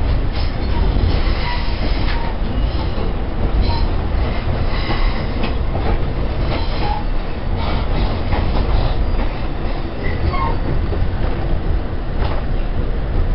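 Amtrak passenger train running on the rails: a steady low rumble with scattered clacks and rattles and a few brief wheel squeaks.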